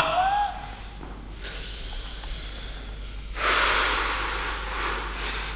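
A man breathing hard through pain as a tender spot is pressed. A short strained vocal sound comes at the start, then hissing breaths, then a louder, long exhale about three and a half seconds in that slowly fades.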